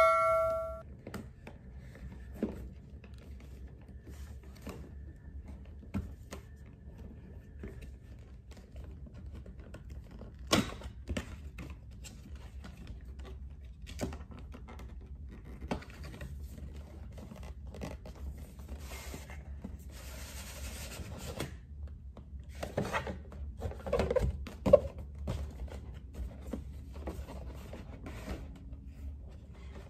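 A cardboard box being opened by hand: scattered light taps and scrapes, about two seconds of rustling some twenty seconds in, then a few louder thunks.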